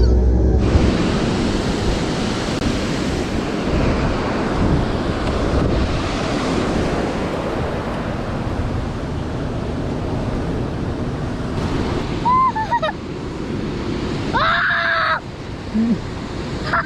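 Bass boat running fast on the river: a steady rush of wind buffeting the microphone and water noise from the hull. Brief voices are heard near the end.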